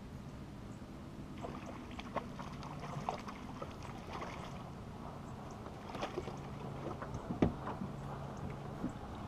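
Hooked fish splashing in the water beside the boat as it is played on rod and reel, with scattered sharp clicks and knocks, the loudest one near the end, over a steady low hum.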